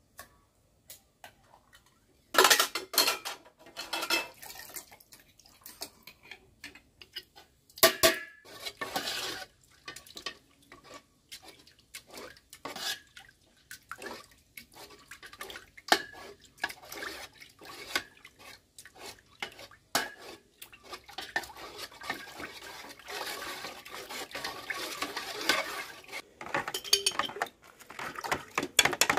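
Metal spoon clinking and scraping against a stainless steel pot while stirring a thick white mixture: scattered sharp knocks at first, then steadier, busier stirring and tapping near the end.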